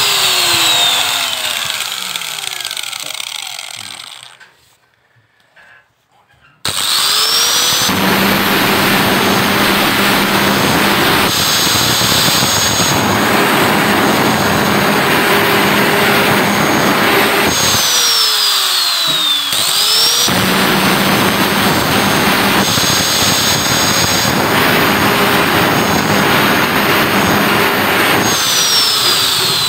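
Electric angle grinder cutting and grinding a motorcycle valve's steel stem tip. At the start the motor winds down to a stop. After a short pause it starts with a rising whine and runs with grinding noise, is switched off and winds down about eighteen seconds in, then restarts a couple of seconds later. It winds down again near the end.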